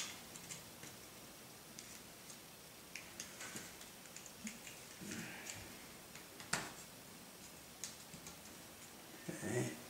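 Light, scattered clicks and taps of small carbon-fibre and plastic RC helicopter frame parts being handled and fitted together by hand, with one sharper click about six and a half seconds in.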